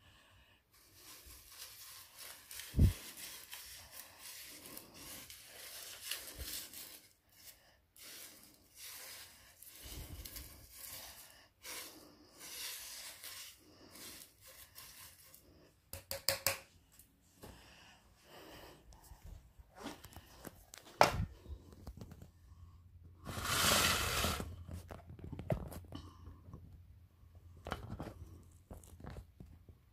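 Paper confetti and sequins rustling and crinkling on carpet in irregular bursts as the pile is disturbed. There are two sharp knocks, and the loudest rustling comes about three-quarters of the way through.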